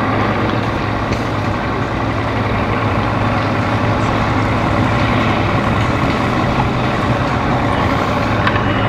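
An engine idling: a steady low drone with a constant hum.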